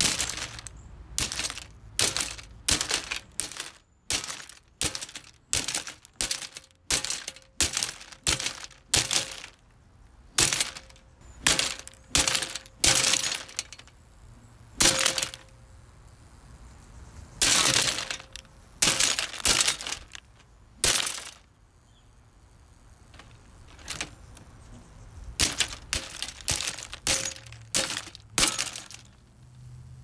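A metal golf club strikes a blue plastic Lasko box fan again and again. The plastic grille and housing crack and snap under the blows. There are about thirty blows in quick runs, with a short pause about two-thirds of the way through.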